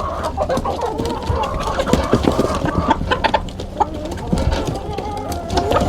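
A flock of chickens clucking, many calls overlapping, with scattered sharp clicks.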